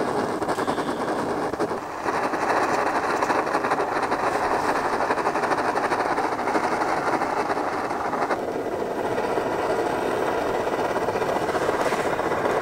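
Liquid-fuel backpacking stove burning under a pot of water with a steady rushing hiss. It gets louder about two seconds in and eases a little after about eight seconds, as the flame is adjusted.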